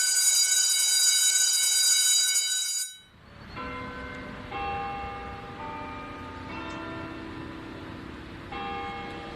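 A bell ringing continuously with a shrill, steady tone, which cuts off about three seconds in. It is followed by bells struck one after another at different pitches, about one stroke a second, each note ringing on.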